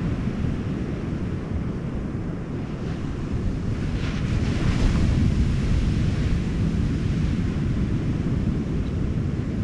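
Wind buffeting the microphone over the steady rush of ocean surf. The surf swells for a couple of seconds about four seconds in, as of a wave breaking.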